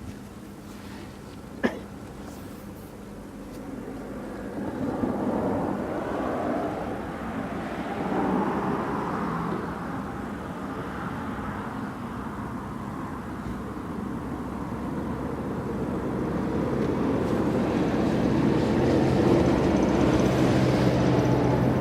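Lorries driving off a ferry, their diesel engines running and growing louder toward the end. A single sharp click about two seconds in.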